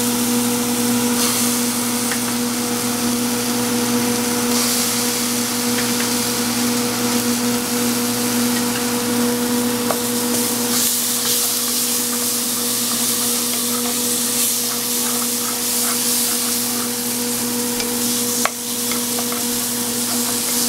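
Onion and tomato masala sizzling in a nonstick pan as it is stirred with a wooden spoon, over a steady low hum. A single sharp knock about eighteen seconds in.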